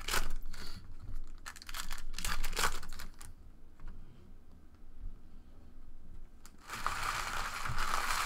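Trading cards handled and knocked against a tabletop, giving short clicks and rustles, then a longer stretch of crinkling, tearing packaging near the end.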